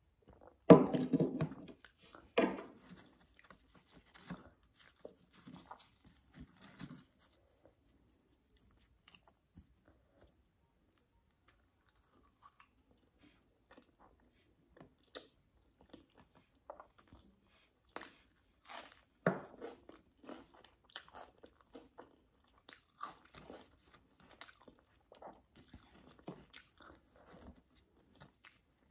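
Close-up eating sounds: loud gulps as masala buttermilk is drunk from a glass near the start, then chewing with soft crunches and mouth clicks, and a louder cluster of eating sounds about two-thirds of the way through.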